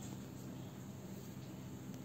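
Steady low hum and faint hiss of room tone, with no distinct event.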